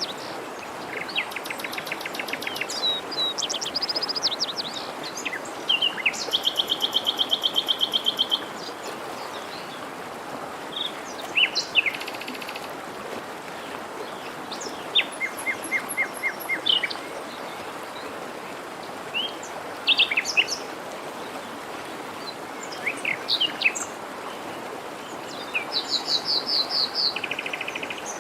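Several songbirds singing over the steady rush of a forest stream: scattered chirps and whistled notes, with fast trills of rapid repeated notes near the start, about a quarter of the way in, and again near the end.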